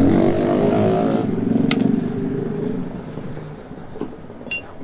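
A vehicle engine running nearby, fading away after about three seconds, with a few sharp metallic clinks of tools.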